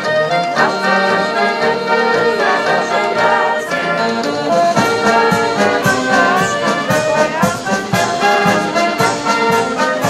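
Brass band music with held chords; a steady drum beat, about two strokes a second, comes in about halfway.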